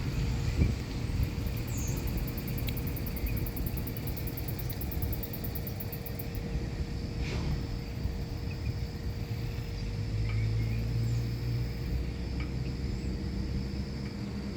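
Outdoor ambience: a steady low rumble and a steady hum, an insect's rapid high pulsing for about five seconds starting a second in, and a few short bird chirps.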